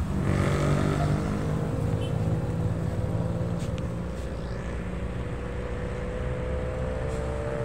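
Road traffic: motor vehicle engines running nearby, with a steady low rumble and an engine drone that rises slowly in pitch.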